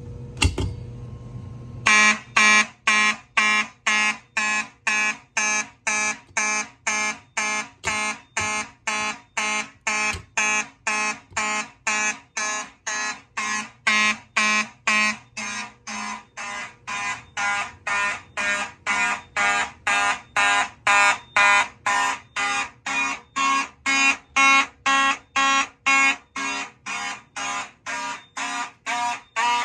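Federal Signal Fibertone fire alarm horn sounding in march-time code, a loud buzzing tone pulsed on and off about twice a second, starting about two seconds in after a single click.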